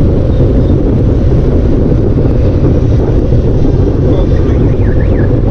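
Steady, loud wind buffeting the microphone of a moving bicycle rider, a deep rumble with no breaks.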